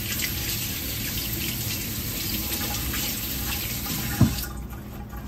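Kitchen faucet running into a stainless steel sink while hands are rinsed under the stream. A single sharp knock about four seconds in, and the water stops just after.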